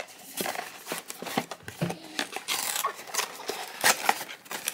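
Hands opening a small cardboard blind box: scattered taps, scrapes and rustles of cardboard.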